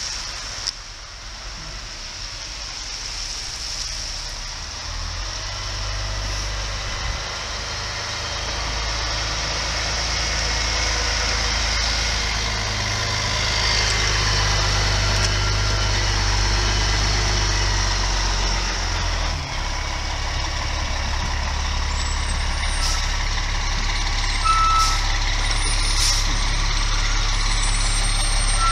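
Fire engine's diesel engine running with a steady low rumble that grows louder, and a backup alarm beeping as the truck manoeuvres. A few sharp clicks come near the end.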